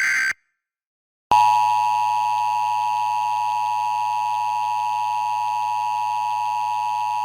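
Emergency Alert System broadcast: a short burst of the screeching SAME data header ends, about a second of silence follows, then the steady two-tone EAS attention signal starts and holds. It is the alert opening a National Weather Service flash flood warning.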